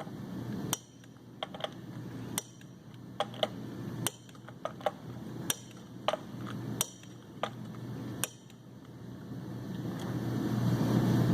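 Click-type torque wrench tightening flywheel bolts on a 7.3 Powerstroke engine: about six sharp clicks roughly one and a half seconds apart, each as a bolt reaches torque, with lighter clicks between them. A steady low hum runs underneath and grows louder near the end.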